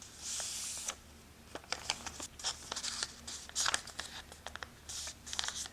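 Origami paper rustling and crinkling as it is folded and pressed flat by hand, with a scattering of small sharp paper ticks and clicks.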